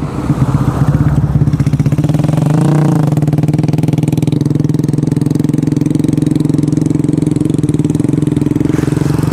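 Engine running steadily close by at an even speed, with a brief rise and fall in pitch about three seconds in.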